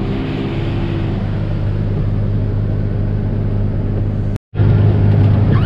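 Pickup truck running, heard from inside the cab as a steady low engine and road rumble. It cuts out abruptly for a moment about four and a half seconds in, then comes back a little louder.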